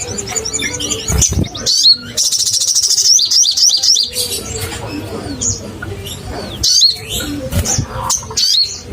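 Sunbird singing loudly: rapid high-pitched trills and sharp chirping calls, with a fast buzzy trill about two seconds in, then repeated short chirps.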